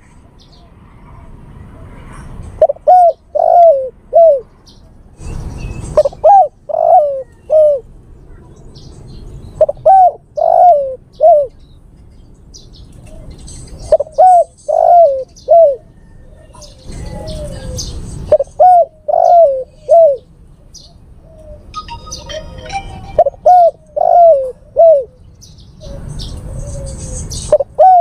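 Male spotted dove (tekukur) cooing its advertising call to draw a female: short phrases of three or four rounded coo notes, repeated every few seconds. Brief hissy rustles fall between some phrases.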